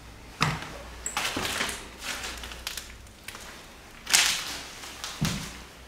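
Crunching and scraping of debris, several noises in a row, the loudest about four seconds in.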